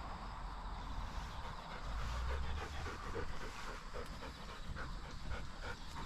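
A dog panting in quick, regular breaths, starting about a second and a half in.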